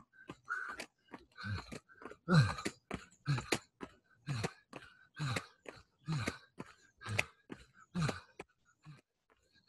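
A man's short, forceful grunting exhales, about one a second and each falling in pitch, in time with jumping jacks, mixed with the landing of his shoes on an exercise mat.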